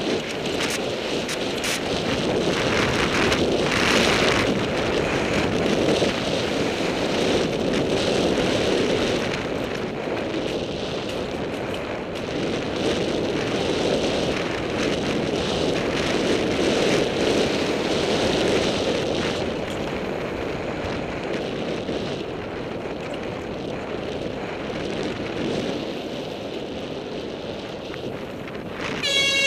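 Wind rushing over a helmet-mounted camera's microphone on a fast mountain-bike descent, mixed with the rattle and frequent knocks of the bike and its tyres over a rough dirt trail.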